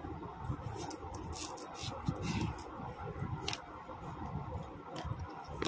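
Potato being peeled on a boti, the fixed curved blade: a series of short, irregular scraping strokes as the blade shaves off the skin, with soft knocks against the wooden base.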